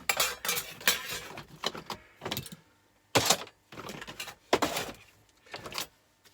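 Irregular knocks, clatters and rustles of scrap and rubbish being handled and dropped into a bin, the sharpest knocks about three seconds in and again about a second and a half later.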